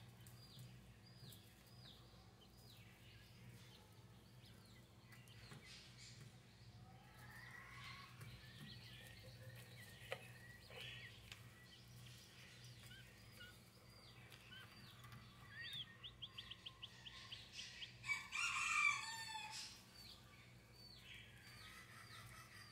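Newly hatched king quail chicks peeping faintly in short, high, falling notes under the brooding hen. About two-thirds of the way through comes a fast trill of chirps, and near the end a louder bird call of about a second and a half.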